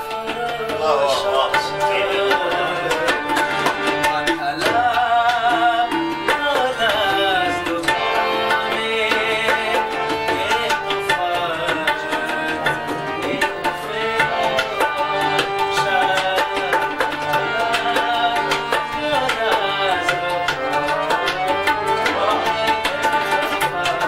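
Tabla played in fast, dense strokes over steady harmonium chords and melody, with a man singing long lines that glide up and down in pitch.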